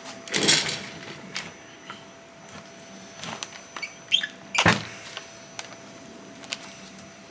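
Suspension parts and tools being handled during a bushing install: a short scrape near the start, scattered clicks and ticks, and a sharp clank about four and a half seconds in.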